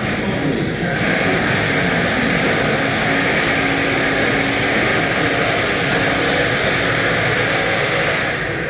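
Steady machine noise, a loud hiss with a faint low hum under it, switching on about a second in and cutting off near the end.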